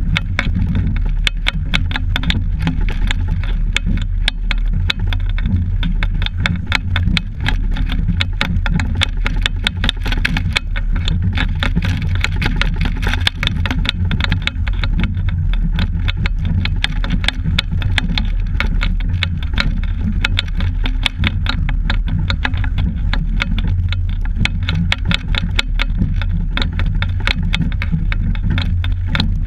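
Steady heavy rumble of wind buffeting a camera microphone fixed on a moving double scull, with rapid continuous clicking and rattling from the vibrating mount and boat.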